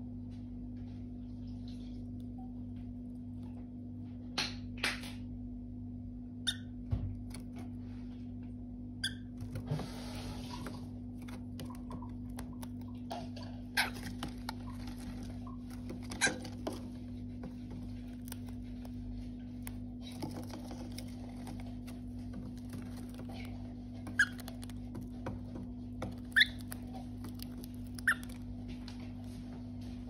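Cockatiel pecking and tearing at a paper carton: scattered sharp taps and clicks, with two longer bursts of paper rustling, over a steady low hum.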